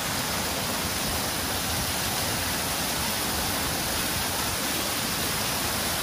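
Steady, even rush of water pouring over a concrete spillway and splashing into the pool below.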